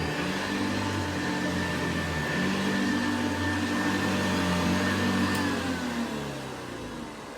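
Vintage Hoover 707 upright vacuum cleaner running with a steady motor hum and a high whine, then switched off about five seconds in, its whine falling as the motor winds down.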